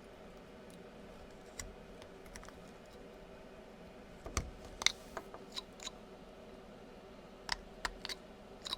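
Scattered light clicks and taps, a few in quick succession at a time, over a faint steady hum: a carving knife and small wooden pieces being handled on a workbench.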